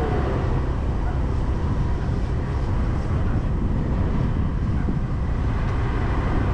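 A vehicle travelling along a road: a steady low rumble of engine and road noise.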